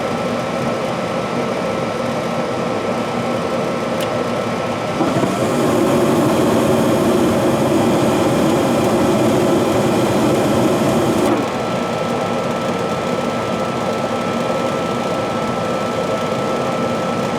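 Furnace motor running with a strained, steady mechanical hum and a constant whine, getting louder and rougher from about five seconds in until about eleven seconds, then settling back: a furnace labouring instead of heating, a sign that something is wrong.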